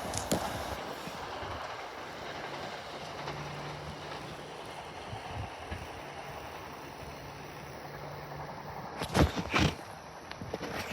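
Commuter train running past with a steady rumbling noise and a faint low hum in the middle. Two loud sharp knocks come about nine seconds in.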